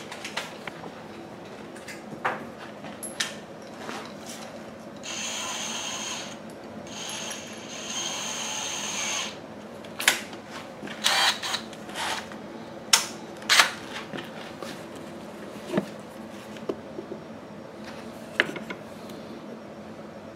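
Cordless drill motor running in two short spells of about two seconds each, followed by a series of sharp clicks and knocks of tool handling.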